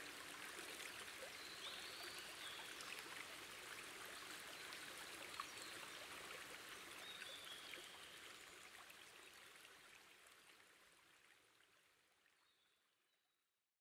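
Faint running water, a stream trickling, with a few faint high chirps over it, fading out to silence near the end. A held low note dies away right at the start.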